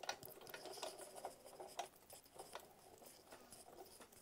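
Sizzix Big Shot die-cutting machine cranked by hand, a cutting-plate sandwich with a metal die feeding through its rollers: a run of faint, irregular clicks and creaks.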